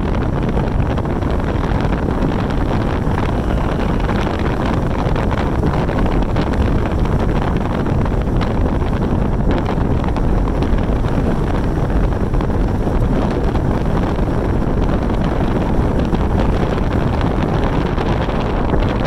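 Steady wind rushing over the microphone, with the low drone of a moving vehicle underneath.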